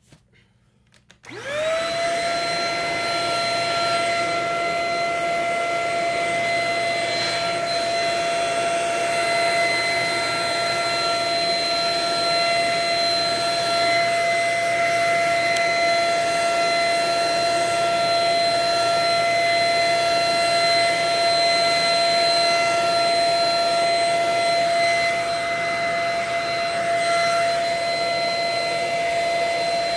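A small high-speed motor-driven blower, of the vacuum-cleaner or hair-dryer kind, switched on about a second in. It spins up within a moment and then runs steadily with a loud rush of air and a high whine.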